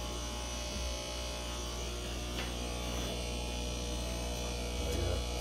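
Steady electric hum and buzz of aquarium air pumps running, feeding bubblers in the tanks.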